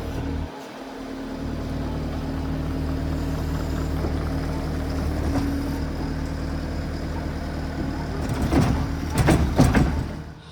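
Case TR310B compact track loader's 74-horsepower diesel engine running steadily, with a few loud scraping knocks near the end.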